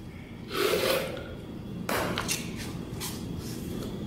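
Several short scraping and rubbing sounds, a second or so apart: a metal putty knife being picked up and handled on ceramic floor tile.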